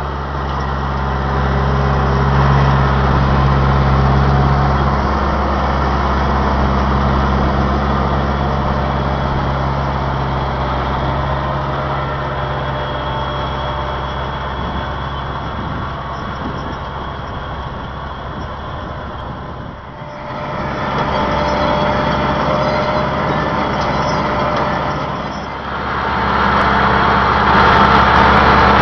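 Large tractor's diesel engine running steadily under load while it tows a Miedema CP42 potato planter, with the planter's machinery clattering along. The sound dips briefly about two-thirds of the way through and changes character near the end.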